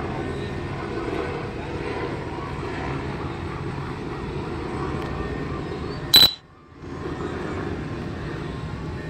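Steady low outdoor rumble with no clear pitch. About six seconds in comes a single short, sharp high-pitched blip, and after it the sound drops out for about half a second.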